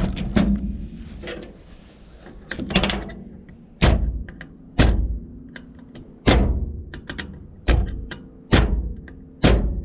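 Old starter drive worked by hand, its pinion snapping along the shaft with sharp metal clacks, about one a second from about four seconds in. This is the drive that was kicking out in service.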